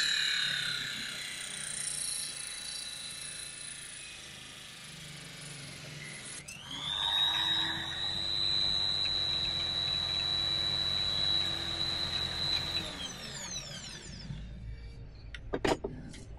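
Electric drill turning a saw blade in a homemade table-saw rig, cutting acrylic sheet. Its high whine falls away at first; about six seconds in it spins back up to a steady whine, runs for about six seconds, then winds down. A few sharp clicks come near the end.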